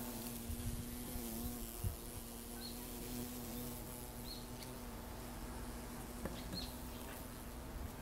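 A bee buzzing in flight: a steady low hum with overtones, wavering slightly in pitch. Three brief high chirps come at intervals.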